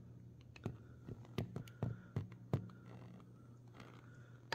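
About seven light clicks and taps within the first two and a half seconds, then only a faint steady low hum.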